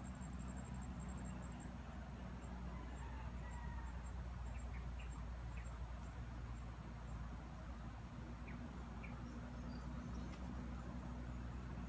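Steady high-pitched insect drone over a steady low rumble, with a few faint short chirps scattered through.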